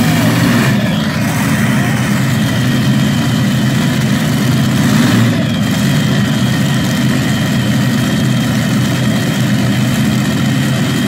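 Modified multi-engine pulling tractor idling steadily after its pull, engine note low and even with no revving. A thin high whine joins about halfway through.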